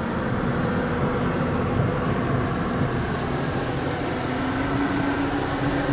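Vehicle engine running steadily with a low drone, heard from inside a car's cabin while driving slowly.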